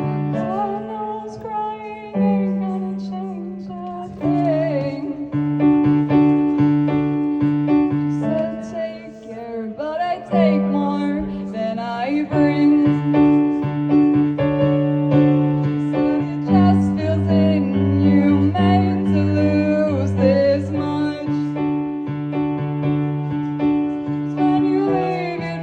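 Electric piano playing slow, held chords, with a voice singing over it at times.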